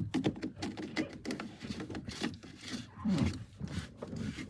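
Irregular clicks and scraping of hands working the boat's water-inlet filter cup as it is screwed back onto its hose fitting.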